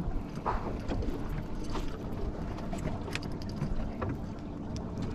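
A fishing boat's motor hums steadily over water and wind noise, with a few small clicks and knocks on the boat.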